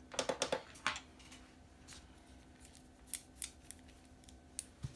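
A quick run of light, sharp clicks and taps in the first second, then scattered single clicks, like small hard objects being handled at a work table.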